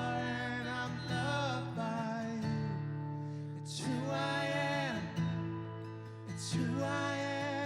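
Music: a voice singing held, sustained notes over acoustic guitar.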